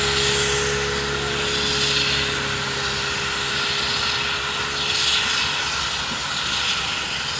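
Several steam locomotives running in convoy and working hard, their exhausts blending into a continuous rushing noise with some swelling hiss. A faint steady hum fades out in the first few seconds.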